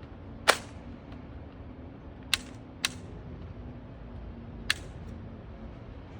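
Toy gun firing four sharp shots: the loudest about half a second in, two close together a little past two seconds, and one more a couple of seconds later.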